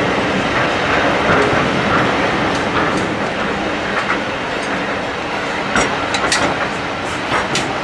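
Train running on a heritage steam railway: a steady rumble of the carriages on the track, with sharp clacks of the wheels over rail joints, several in the second half.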